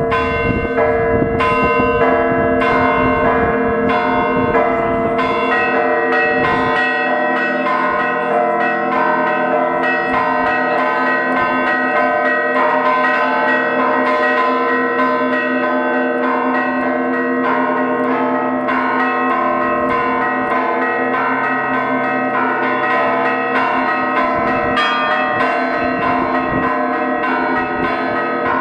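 A set of Russian Orthodox church bells rung by a single ringer pulling the clapper ropes, playing a festive peal. Several bells of different pitches are struck in a rhythmic pattern over the steady ringing of the others.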